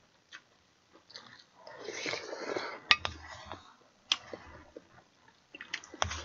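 A person eating budae-jjigae close to the microphone: wet chewing and mouth sounds about two seconds in, with sharp clinks of a ladle against the stew pot and bowl about three seconds in, about four seconds in and several times near the end.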